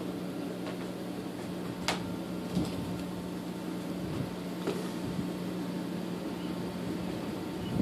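Small 12-volt water pump of a portable shower running with a steady hum as it primes, cutting out a little before the end, with a few light clicks.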